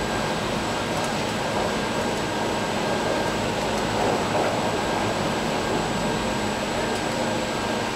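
Chairlift station machinery running: a steady mechanical hum and whine as the chairs travel through the station.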